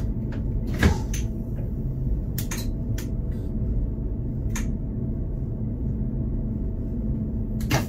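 Steady low hum inside a stationary electric train's driver's cab, broken by a series of sharp clicks of switches and buttons being worked on the control desk. The loudest click comes about a second in, with another just before the end.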